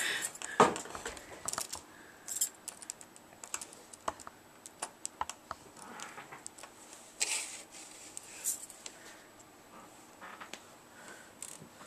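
Irregular small clicks, taps and scrapes of fingers and nails handling the plastic casing, hinge and keyboard of a Sony VAIO laptop while its screen is being taken apart.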